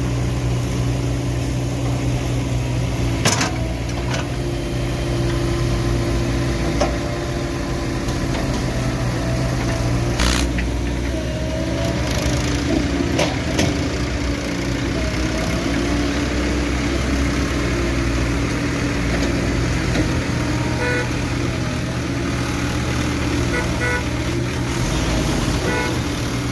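Diesel engine of a backhoe loader at work, running steadily, with a few sharp knocks spread through.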